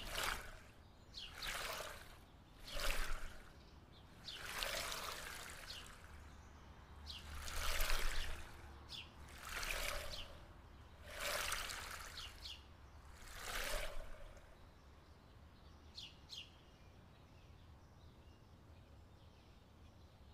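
Water sloshing and splashing in repeated surges every second or two, dying away about fourteen seconds in, with a few short high chirps.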